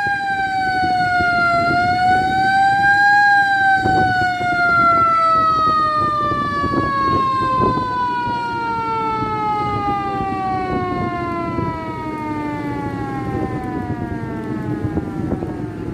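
A siren winding down. Its single wailing tone dips, rises briefly about two seconds in, then glides slowly and steadily lower, fading out near the end.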